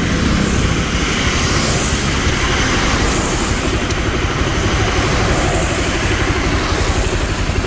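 Motorcycle being ridden on a wet road: its engine running steadily under a constant rush of wind on the microphone.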